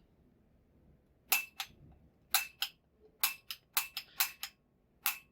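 Push-button piezo igniter on a propane torch being pressed over and over, about six times. Each press gives a sharp click followed by a fainter click about a quarter second later. The igniter is being tested for a spark and isn't sparking.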